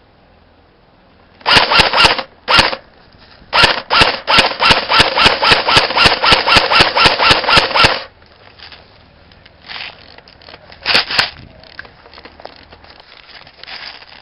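Airsoft gun firing sharp single shots in quick succession: a few shots, then a steady string of about twenty at roughly four or five a second, then two more near the end.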